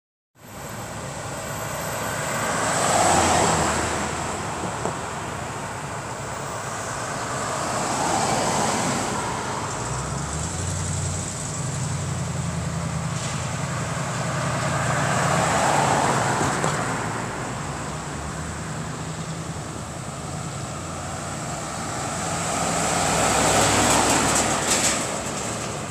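Road traffic: cars and trucks driving past one after another, each swelling and fading, about four passes in all. The loudest is near the end, as a pickup truck goes by close up. A low steady engine hum runs underneath through the middle.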